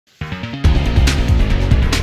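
Background rock instrumental music: a short quiet opening, then the full band with drums comes in about half a second in.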